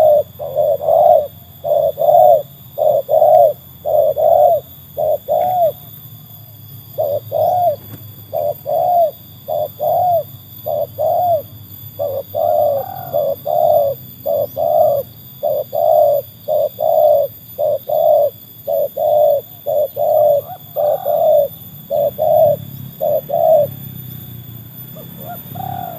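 Spotted dove (tekukur) cooing: a long series of arched coos, about two a second, in runs with short pauses, stopping a couple of seconds before the end.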